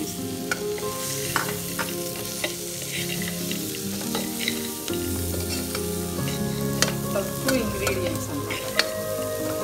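A steel spoon stirring soaked black-eyed peas into sizzling potato-onion masala in an aluminium pressure cooker, with many short clicks and scrapes of spoon on metal.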